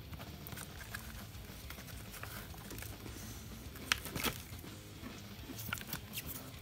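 A person chewing a crisp shortbread cookie: a few faint crunches about four seconds in and a cluster near the end, over a low steady hum.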